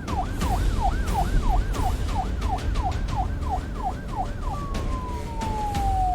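Police siren in a fast yelp, its pitch rising and falling about two to three times a second, changing about four and a half seconds in to one long tone that slowly falls. A low rumble runs beneath it.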